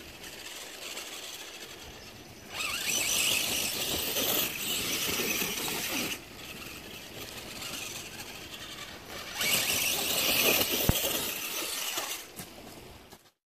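RC bouncer crawler's motor and geared drivetrain (RC4WD R3 transmission and transfer case) whining under throttle while climbing. It is louder in two bursts, quieter in between, and cuts off suddenly near the end.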